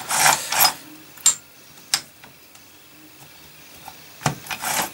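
Gears and shafts of an opened motorcycle gearbox turned by hand: short scraping, rubbing noises of metal parts, two sharp clicks about a second apart, then another scrape near the end, as the gearbox is stepped from fourth into fifth gear.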